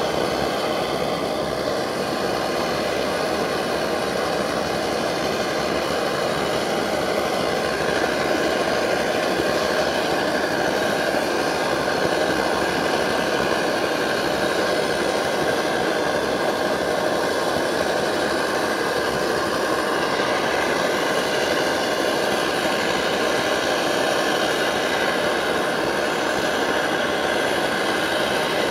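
MSR Dragonfly white-gas stove burner running at full pressure under a pot: a steady, really loud rushing hiss, the fuel bottle pumped up with about 50 pumps. A faint steady tone joins it about eight seconds in.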